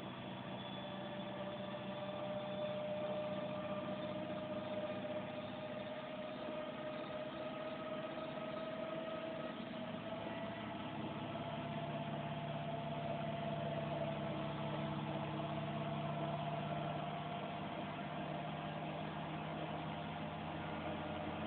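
Steady mechanical hum of a running motor, with a faint tone that slowly rises in pitch.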